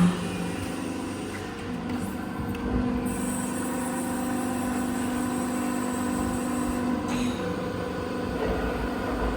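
130-ton CNC hydraulic press brake running with a steady hum and held tones. From about three to seven seconds in, the tone grows stronger and a high hiss joins it, then both drop back.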